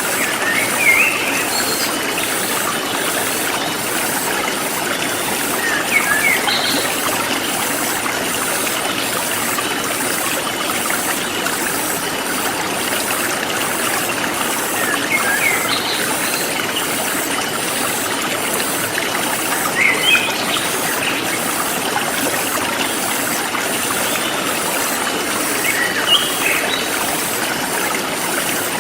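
Forest stream flowing steadily, with a bird giving short bursts of rising chirps about every five seconds and a fast, even high-pitched pulsing of insects.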